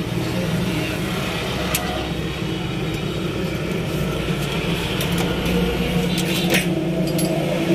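A motor vehicle engine running steadily, a low even hum, with a couple of brief sharp clicks.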